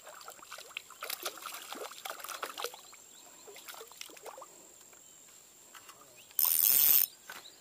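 Light clicking and small splashing from a spinning reel and a walk-the-dog topwater lure being worked across the surface. Near the end comes a loud half-second rush of noise.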